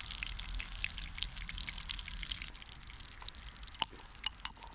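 Steady fine crackling and sizzling of hot fat over a campfire, with a few sharp clicks near the end.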